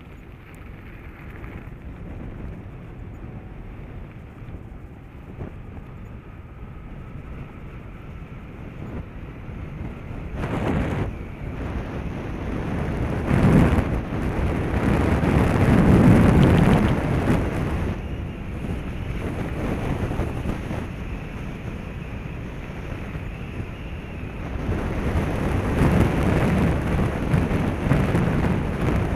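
Wind buffeting the microphone of a moving action camera, a rumbling rush that swells to its loudest about halfway through and rises again near the end.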